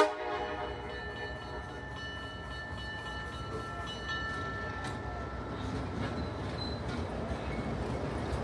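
Train rolling along the track: a steady rumble with a few faint clicks, slowly growing louder.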